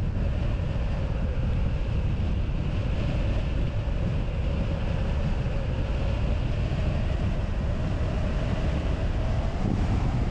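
Airflow of a hang glider in flight rushing over the microphone in a steady buffeting. A faint thin whistle runs underneath it, drifting slightly in pitch and rising near the end.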